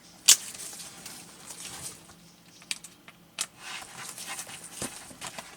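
Small screwdriver working the screws of a radio's display-unit housing, with light scraping and a few sharp clicks of metal on plastic; the loudest click comes just after the start, then three softer ones.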